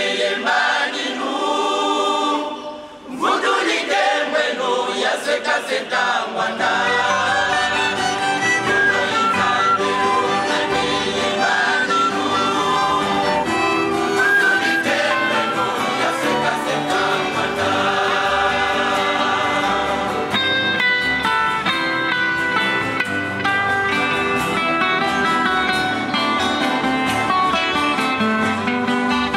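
A church choir singing, with a brief break about three seconds in. The singing then goes on accompanied by several acoustic guitars, and a low bass line comes in about six or seven seconds in.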